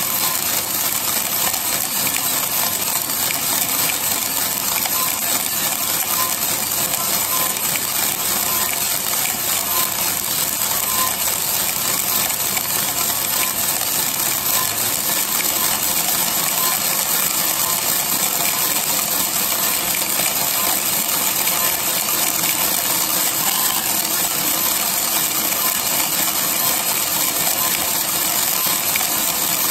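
Green coffee beans tumbling in the steel drum of a 3 kg Mill City coffee roaster, a steady, dense rattle of beans clattering against the drum. The drum speeds up from 50 to 60 rpm about halfway through.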